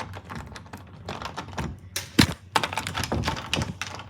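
A lockpick being worked inside a door lock: a quick, irregular run of small clicks and rattles, with one louder knock about two seconds in.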